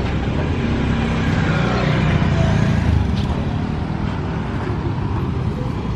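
Street traffic: a motor vehicle's engine running close by, a low steady rumble that eases slightly after about three seconds.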